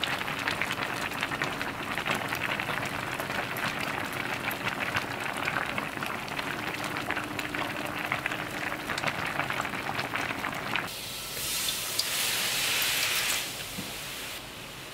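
Pot of spicy pollack stew boiling hard, a steady crackly bubbling full of small pops. About eleven seconds in it gives way to a louder, sharper sizzle lasting a couple of seconds: dark soy sauce boiling in a hot wok.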